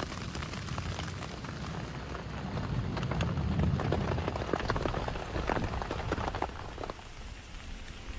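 Rain falling steadily, with many close drops ticking sharply onto a surface over a low rumble.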